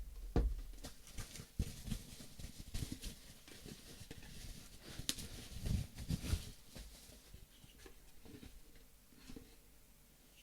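Irregular light taps, knocks and rustles of items and packaging being handled and set down on a table, busiest in the first seven seconds or so, then quieter.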